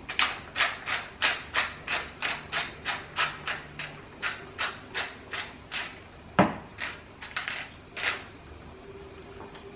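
Hand-twisted wooden spice mill grinding in short, even rasping strokes, about three a second. A little past halfway there is a single sharp knock, followed by a few more turns.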